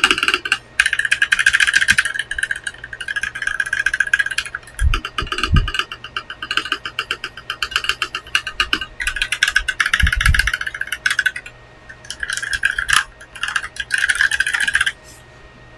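Typing on a Gamakay LK67 mechanical keyboard with Kailh Pro Burgundy switches: fast runs of keystroke clacks in bursts of a second or two, broken by short pauses, with a few deeper thuds about five and ten seconds in.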